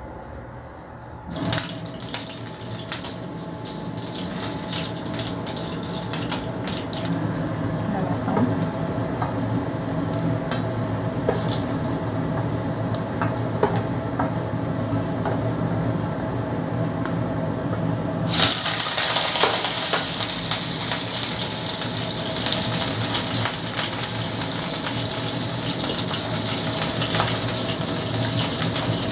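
Nuggets sizzling and crackling in hot oil in a frying pan over a steady hum. About 18 seconds in, a much louder, denser sizzle starts as eggplant slices go into the hot oil.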